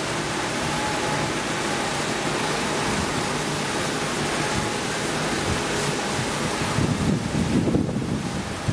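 Steady rush of water spraying from an aerial ladder's master-stream nozzle and a hose line onto a burned roof, with low rumbles of wind on the microphone near the end.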